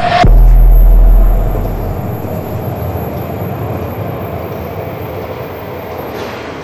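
A deep low boom about a quarter second in that dies away over a second or two, then the steady rumble of a metro train.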